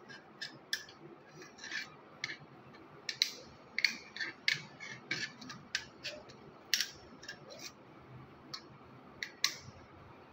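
Small metal tools, a tester screwdriver and pliers, clicking and scraping against the screws and metal plate of a switch board as it is probed for leakage current. About twenty irregular short clicks and scrapes, with no steady sound underneath.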